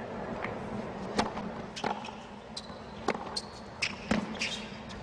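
A tennis serve and rally on a hard court: five sharp pops of the ball off racquets and court over about three seconds. A couple of short high squeaks sound between the hits, over a steady low crowd hush.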